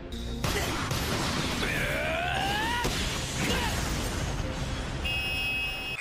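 Animated arena crowd roaring during a slam dunk, with a rising, held shout about two seconds in. Steady high tones come in near the end.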